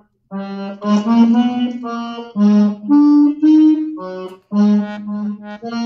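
Chromatic button accordion playing a slow phrase of separate, detached notes, some sounding as two-note chords, with short breaks between them. The phrase is played from its opening with each note shaped on its own by the bellows, and it is heard over a video call.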